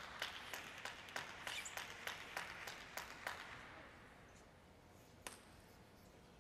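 Scattered clapping from a small audience, irregular hand claps that thin out and die away over the first three and a half seconds. Then it is quiet apart from a single sharp click about five seconds in.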